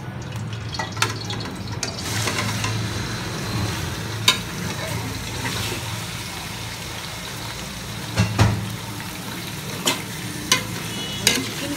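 Raw chicken pieces sizzling as they hit hot oil in a steel pot and start to fry, the hiss spreading and filling out about two seconds in. Sharp clinks of a steel ladle against the pot come now and then as the chicken is stirred.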